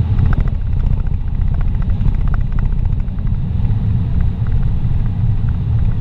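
Steady low road-and-wind rumble of a car driving on an open highway, heard from inside the cabin.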